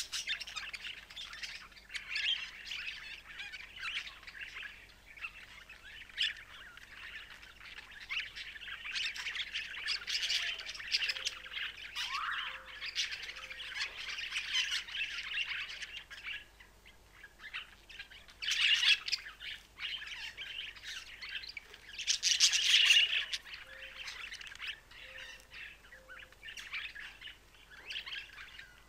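Budgerigars warbling and chattering in a continuous run of quick chirps and short calls, with two louder passages about two-thirds of the way through.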